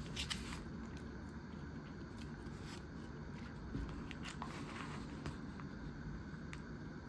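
Scattered light clicks and crinkles of a plastic bento box and food being handled, over a steady low background rumble.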